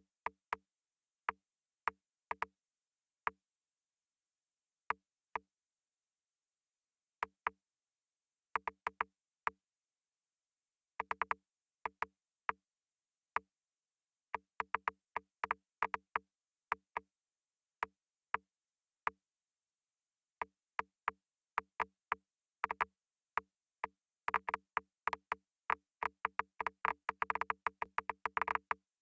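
Geiger counter clicking at random, uneven intervals: single clicks and small clusters at first, growing much faster and denser over the last few seconds.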